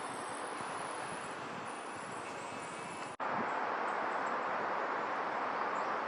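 Steady outdoor background hiss with a faint high steady tone in the first half; it drops out for an instant about three seconds in, then returns a little louder without the tone.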